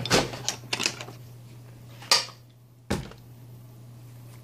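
A few clicks and knocks of small hard objects being handled on a desk, the sharpest about two seconds in and a duller knock about a second later, over a steady low hum.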